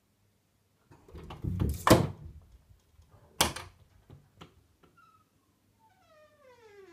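A cat leaps at a lever door handle and pulls it down: a scuffle and a loud clack of the handle and latch about two seconds in, then a second sharp clack and a few light clicks. Near the end a long squeak falls steadily in pitch as the door swings open.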